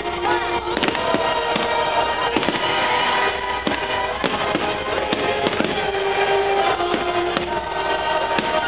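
Aerial firework shells bursting, a string of sharp bangs with crackle, over music playing throughout.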